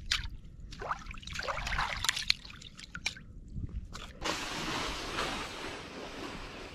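Water trickling and dripping at the edge of a hole cut in lake ice, with small clicks and splashes of ice pieces. About four seconds in, a steady hiss takes over.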